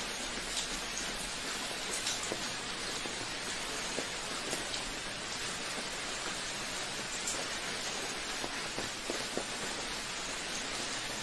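Steady rain falling: an even hiss with single drops ticking sharply here and there.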